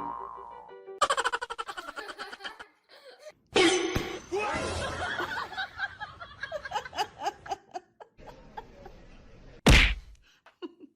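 People laughing, with a single loud thump near the end.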